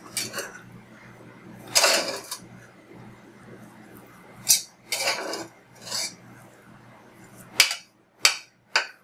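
A metal spoon scrapes and knocks against the inside of a pressure-cooker pot while stirring cooked quinoa with brown sugar. There are about eight short, irregular strokes, the loudest about two seconds in and near the end.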